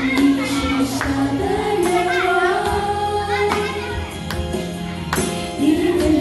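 A song with a singing voice holding long notes over an accompaniment, with a percussion strike about once a second.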